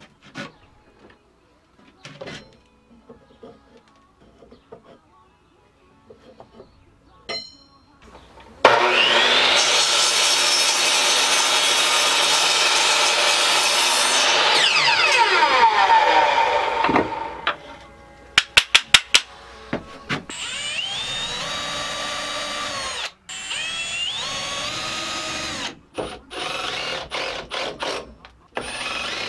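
Light knocking and handling of wood, then a miter saw cutting a board about 9 s in; its motor winds down with falling pitch after the cut. After a quick row of sharp clicks, a cordless drill drives screws into wood in several short runs, each rising to a steady pitch.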